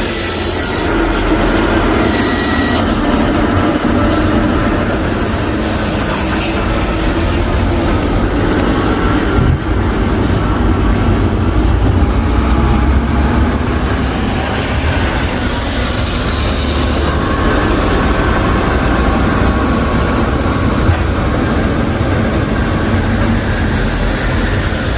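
Heavy diesel machinery running steadily with a deep, continuous rumble, with a few brief noisy bursts in the first several seconds.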